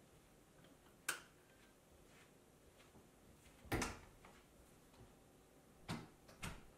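A sharp click about a second in as a table lamp's switch is pressed, followed by a louder knock with a dull thud and two softer knocks near the end.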